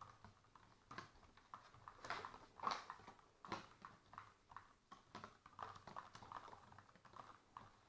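Spoons clicking and scraping against small plastic cups as slime goo is stirred: faint, irregular taps several times a second.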